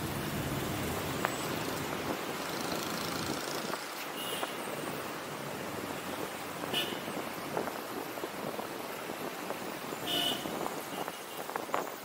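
Busy city road traffic: a steady wash of vehicle engines and tyre noise. A low engine rumble fades about two seconds in, and a few short high-pitched beeps come through.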